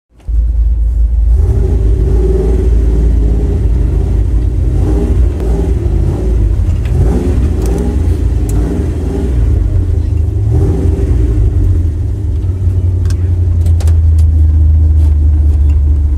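A 306 engine heard from inside the cab of an off-road truck, revving up and down as it drives through mud, then running as a steadier deep drone over the last few seconds.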